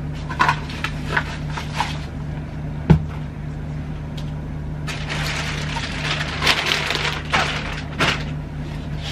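Luggage and clothes being handled: a few light clicks, one sharp knock about three seconds in, then several seconds of crinkly rustling, over a steady low hum.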